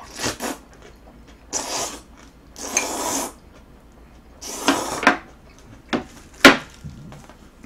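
Jjajang noodles (in black-bean sauce) slurped up from a bowl with chopsticks, several long slurps one after another. A single sharp tap near the end, the loudest sound here.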